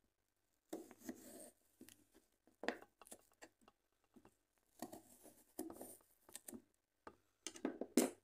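Irregular kitchen handling sounds: short rustles, clicks and knocks coming and going, with a louder rustling burst near the end.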